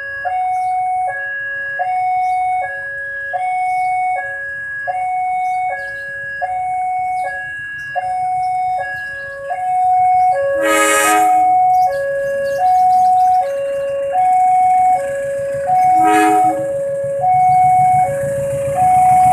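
Level-crossing warning bell ringing its two alternating tones, about one high-low cycle every second and a half. About ten seconds in, an approaching CC 201 diesel locomotive sounds its horn once for about a second, and again briefly near 16 seconds. Engine rumble and rail noise then build as the train reaches the crossing.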